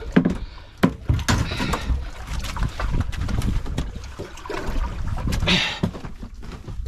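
Handling noises on a small fishing boat's deck: scattered knocks and clicks as a cooler lid is lifted and a towel is rubbed over the rubber mat. Water trickles and laps under a steady low rumble, with a brief hissing rustle about five and a half seconds in.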